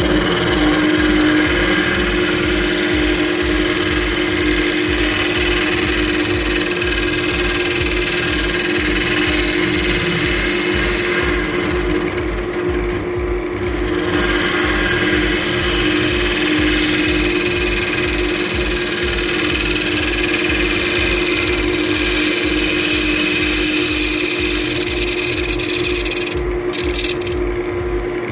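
Wood lathe running while a gouge cuts the inside of a spalted beech bowl: a steady hiss of the cut over the lathe's hum. The cutting lets up briefly about halfway through and again near the end.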